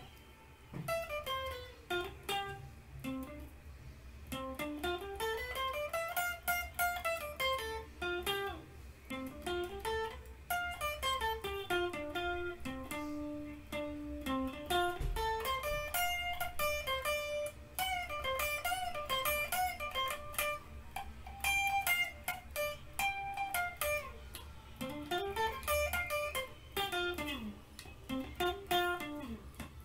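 Electric guitar played solo: fast runs of single notes climbing and falling in pitch, starting about a second in.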